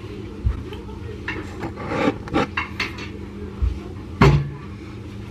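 Kitchen clatter: a series of knocks and clinks of dishes, pots and utensils being handled, the loudest knock about four seconds in.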